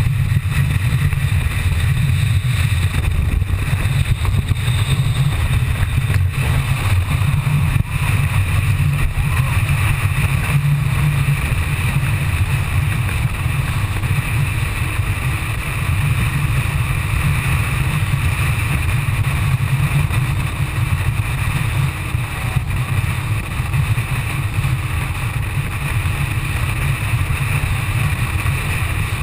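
A rigid inflatable boat under way at speed: a steady, dense low rumble of engine and hull on the water, muffled through a waterproof camera housing.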